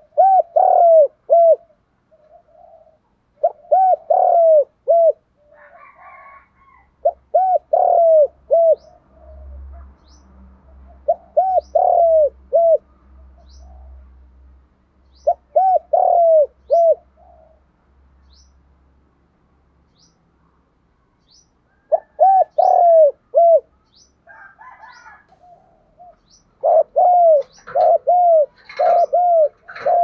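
Spotted dove cooing: repeated phrases of three or four short, arching coos about every four seconds, a pause of several seconds past the middle, then a quicker run of coos near the end.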